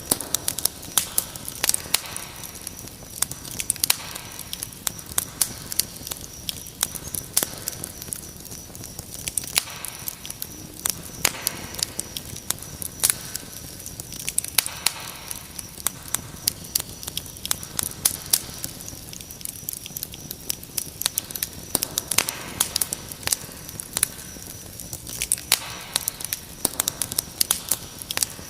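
Wood fire crackling with many small snaps and frequent sharper pops, over a steady high cricket trill.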